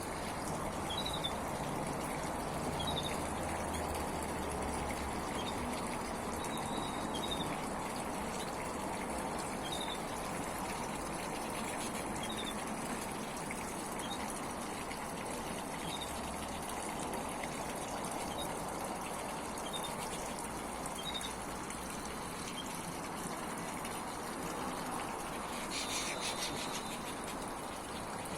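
Small pumped aviary waterfall and fountain splashing steadily, with short high chirps from small finches scattered through it and a brief burst of rapid high chirping near the end.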